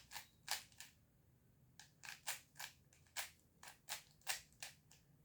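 3x3 Rubik's cube being turned by hand: a string of short plastic clicks at uneven spacing, about fourteen in five seconds, some in quick clusters.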